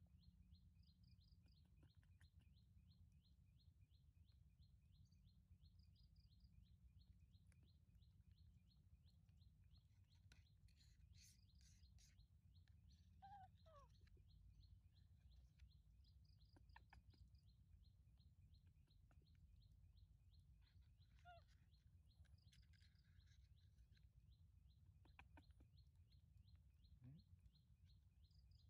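Near silence: faint outdoor ambience with a steady low rumble, a fast even ticking and a few faint bird chirps.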